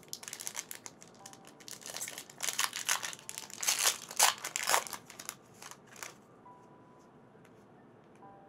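Foil booster-pack wrapper being torn open and crinkled by hand: a run of crackling rustles, loudest around the middle, that dies away after about six seconds.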